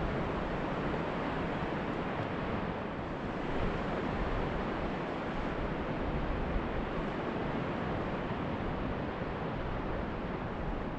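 Wind blowing across the microphone, with a steady low rumble, over the even wash of surf breaking on a sandy beach.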